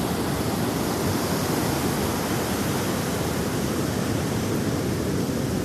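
Big ocean waves breaking as a steady wash of surf noise, heaviest in the low range.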